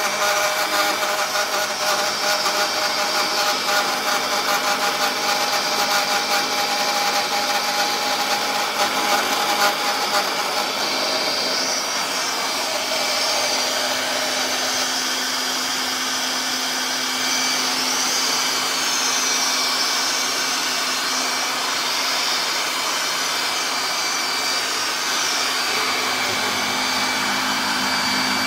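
A cheap 3040 CNC mill's spindle running at 5000 rpm while its end mill rough-cuts a pocket in a metal block: a steady whine with cutting noise. The pitch of the whine shifts about a third of the way through.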